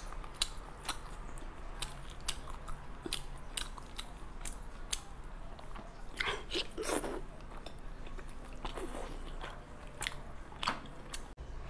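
Close-miked eating sounds: fingers tearing a large piece of cooked sea snail meat while she bites and chews it. Short wet clicks and smacks come all through, with a louder run of squelching about six to seven seconds in, over a low steady hum.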